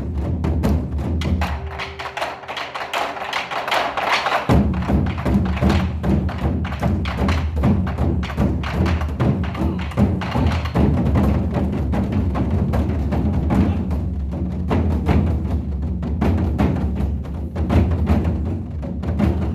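Korean ritual drums beating in a fast, dense run of strikes, with deep booming lows. The deep boom drops away for a couple of seconds about two seconds in, then returns.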